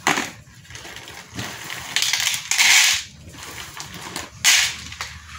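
Dry cat food pellets poured from a bag into a tray, rattling in short bursts, with the bag crinkling; the longest pour comes about two to three seconds in, and a shorter one near the end.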